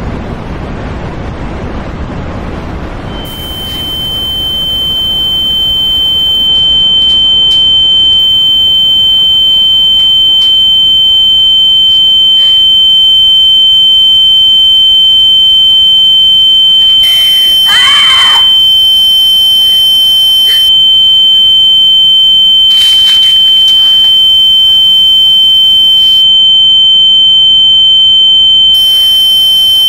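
A single steady high-pitched ringing tone, like ringing in the ears, comes in about three seconds in and holds loud, over a low rushing noise. A brief swishing sweep passes over it about two thirds of the way through.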